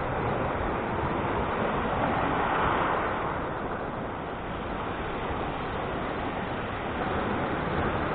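Sea waves washing in, a steady rush that swells about twice, with wind buffeting the microphone.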